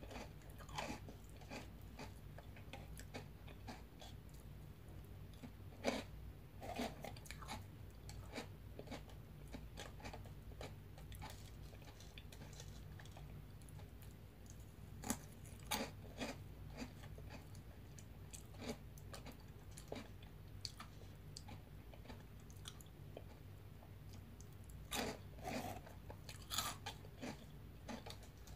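A person biting and chewing crunchy veggie straws dipped in yogurt: irregular crisp crunches, some louder than others, over a steady low hum.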